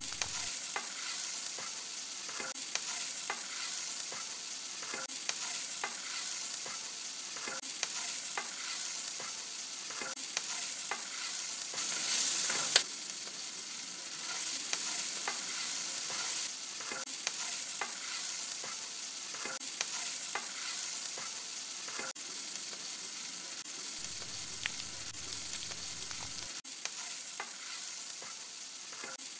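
Onion and masala frying in oil in a metal kadai, a steady sizzle, with a metal spoon stirring and scraping and knocking against the pan again and again. About halfway through the sizzle swells louder for a moment, then drops off abruptly.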